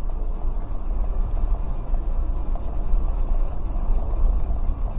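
Steady low rumble of a car's engine and road noise heard from inside the cabin, with no impact.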